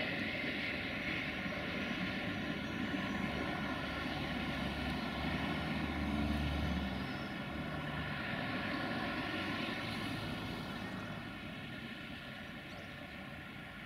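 Freight train of rail tank wagons rolling past with a steady rumble under the drone of a 060-DA (LDE 2100) diesel-electric locomotive engine. The low rumble swells about halfway through and the sound fades over the last few seconds.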